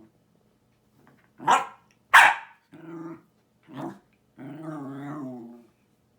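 Jack Russell terrier grumbling and "talking" in growly vocalisations. Two short loud bursts come about one and a half and two seconds in, then two brief grumbles and a longer, wavering, drawn-out grumble lasting about a second near the end.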